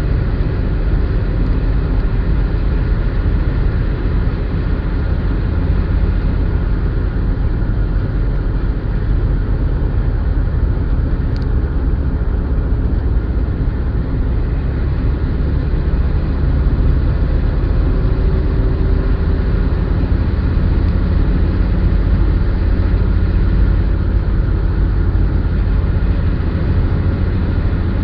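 Steady in-cabin road noise of a car cruising at highway speed: a low, even rumble of tyres and engine.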